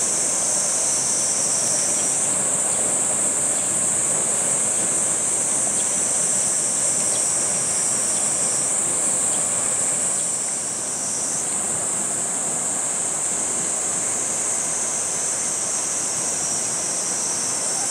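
Dense chorus of cicadas buzzing without a break, a high continuous drone, with a lower part of the chorus dropping out and coming back a few times. A steady rushing noise lies underneath.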